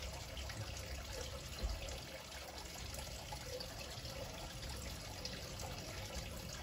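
Steady background hiss, with faint handling of a leather shoe being set down and touched on a cloth.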